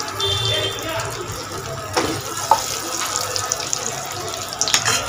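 Breaded bread cubes sizzling as they deep-fry in hot oil: a steady hiss with a couple of sharp clicks, one about two seconds in and one near the end.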